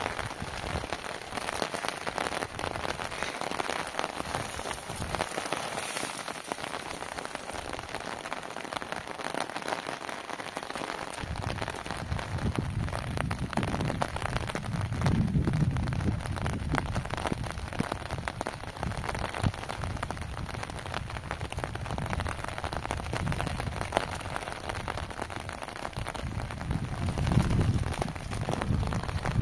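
Heavy rain falling steadily, with low rumbles coming and going in the second half.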